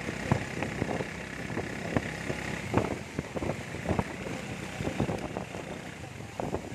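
Motorized tricycle's small engine running as it drives through heavy rain, with a steady hiss of rain and wet tyres and irregular taps of raindrops striking the sidecar's plastic curtain and roof.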